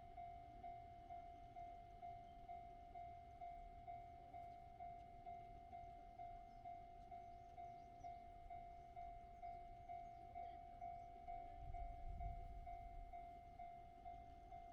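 Japanese railway level crossing warning bell ringing, an even single-pitched ding about twice a second. A low rumble swells briefly near the end.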